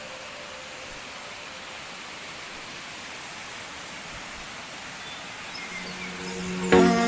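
Steady, even outdoor rushing noise, with a few faint chirps near the end. Music cuts in just before the end.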